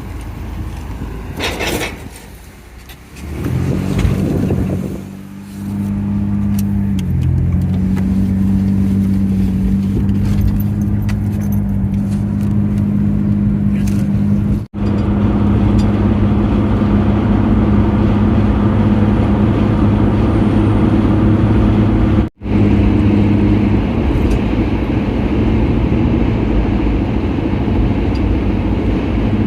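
Motor vehicle engine running at a steady speed, a low even hum that settles in after a few seconds of uneven noise.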